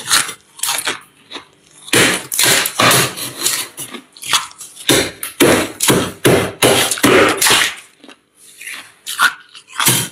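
Thick freezer frost being scraped and broken up with a small tool: a dense run of irregular crunches, lighter for the first couple of seconds, with a brief pause near the end.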